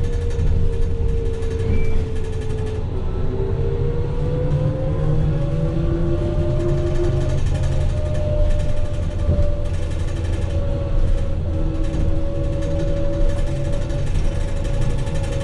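Inside a 2006 New Flyer E40LFR electric trolleybus on the move: the traction motor's whine rises in pitch a few seconds in as the bus picks up speed, then holds steady over a constant low road rumble.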